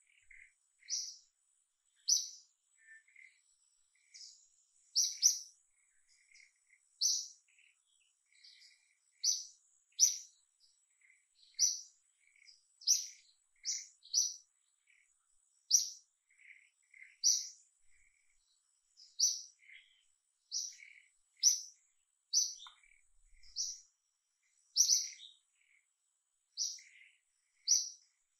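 Birds chirping: short, sharp high chirps about once a second, some doubled, with fainter lower notes between them over a thin, steady high-pitched tone.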